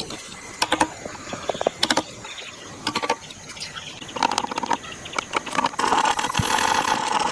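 Hand-tool work on wood: a few sharp clicks and knocks, then a rough scraping from about four seconds in that becomes a steady, rhythmic rasp near the end.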